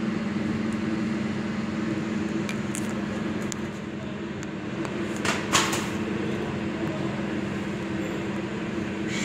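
Conveyor-type UV sterilizing machine running with a steady mechanical hum, its mesh belt carrying packages through the lamp tunnel. A couple of short clicks come about halfway through.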